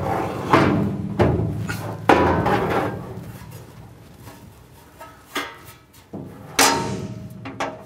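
A shelf or bar knocking and clanking against a wall cabinet as it is fitted inside. There are about half a dozen separate sharp knocks, some with a short ringing tail.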